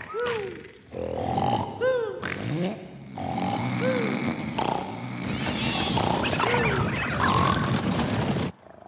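Cartoon snoring sound effects: rasping snorts alternating with short whistles that rise and fall, over background music. The snoring swells into a loud racket in the second half and cuts off abruptly just before the end.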